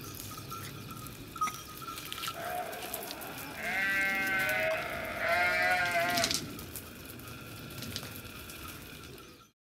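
Small Yorkshire Terrier giving two drawn-out, high, wavering whines, loudest from about three and a half to six seconds in.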